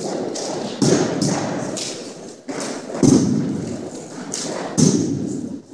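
An armed drill team's rifle and foot movements: about half a dozen sharp, irregular thuds and taps of drill rifles and boots on a wooden gym floor, the loudest about three seconds in, each ringing on in the hall's echo.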